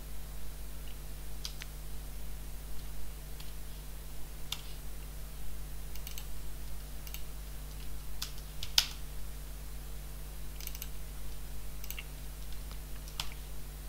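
Computer keyboard being typed on in sparse, irregular keystrokes, with one sharper click about nine seconds in, over a steady low electrical hum.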